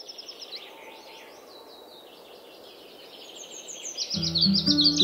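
Songbirds chirping and singing in quick repeated phrases over a soft outdoor hiss, fading in and growing louder. About four seconds in, music with clear steady notes starts under the birdsong.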